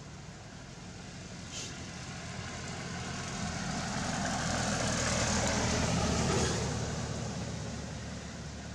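A motor vehicle's engine passing close by, growing louder to a peak about six seconds in and then fading away.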